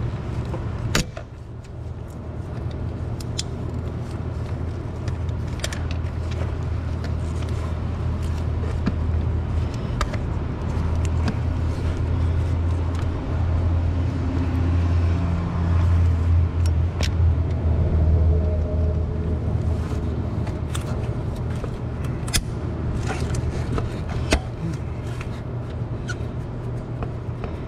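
Pliers and a metal hose clamp being handled on a coolant hose: scattered sharp clicks and taps over a steady low hum.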